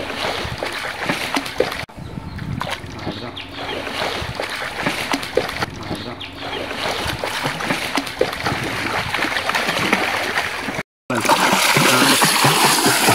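Water splashing in a swimming pool: irregular splashes and slaps of water. The sound cuts out briefly about eleven seconds in and comes back louder.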